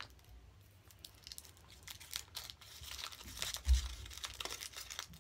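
Foil wrapper of a chocolate surprise egg crinkling and tearing as it is peeled off by hand, starting about two seconds in. There is one low thump of handling partway through.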